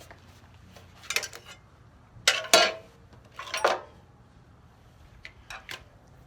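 Metal objects being handled, making four groups of short clanks and clinks.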